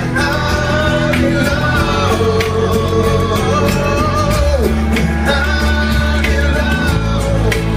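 Live rock band playing a song: electric bass and guitars with singing.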